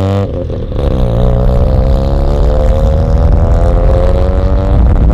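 Mazda RX-7's rotary engine pulling under acceleration: the pitch climbs, drops briefly at a gear shift just after the start, then rises slowly and steadily again.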